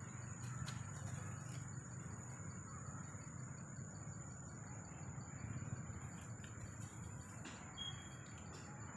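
Forest ambience: a steady, unbroken high-pitched insect drone, with a brief high chirp near the end.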